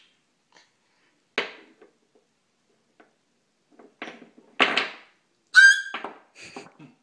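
Wooden alphabet blocks knocking against each other and a wooden coffee table as a toddler stacks them: a single sharp knock a little over a second in, a louder clatter around the middle, and a few light knocks near the end. Right after the clatter, a short high-pitched squeal from the toddler.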